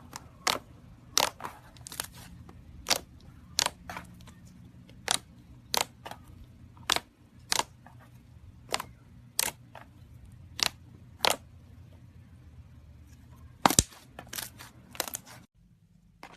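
Slime being squeezed and poked by hand, making sharp popping clicks about once or twice a second that stop about fifteen seconds in.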